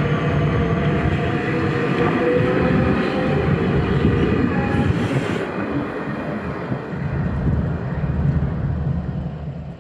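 Electric commuter train running, a low rumble with a steady whine of several tones over it; it fades away near the end.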